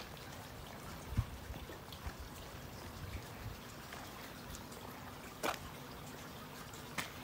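Steady rain pattering on the harbour water and wet jetty, with a low thump about a second in and two sharp drip-like clicks, one in the middle and one near the end.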